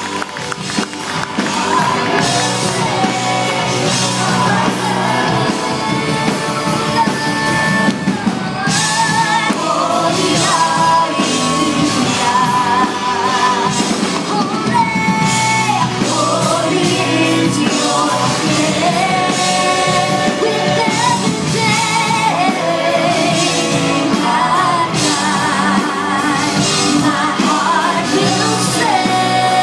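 Live worship band playing rock-style music with a singer holding long wavering notes over the full band. The music swells up over the first couple of seconds.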